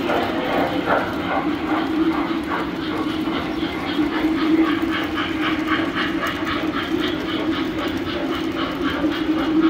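Tinplate model trains running on three-rail track: a steady motor hum with a rhythmic clicking of wheels over rail joints, about four clicks a second.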